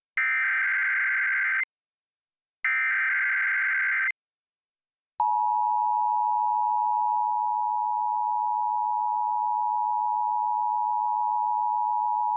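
Emergency Alert System test: two buzzy bursts of the digital SAME header data, each about one and a half seconds long with a one-second gap. About five seconds in, the steady two-tone EAS attention signal (853 and 960 Hz together) begins and holds.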